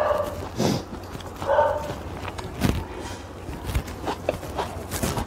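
Eating sounds: slurping of instant noodles and sipped soup broth, with chewing and mouth smacks in short, irregular bursts.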